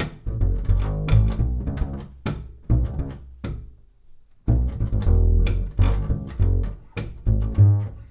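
Double bass played pizzicato: a hip-hop style bass line of short, low plucked notes with sharp percussive attacks. It breaks off briefly about four seconds in, then picks up again.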